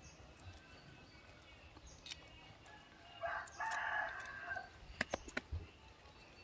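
A rooster crows once, a pitched call about three seconds in that lasts around a second and a half. A few sharp clicks follow about a second later.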